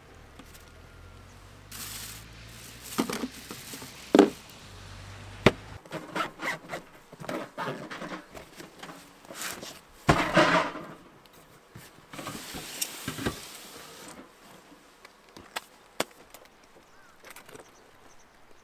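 Camping gear being handled and packed in and around a van: a run of knocks, thumps, rustles and scrapes. The sharpest knocks come about four and five and a half seconds in, and a loud thump about ten seconds in. A low hum stops about six seconds in.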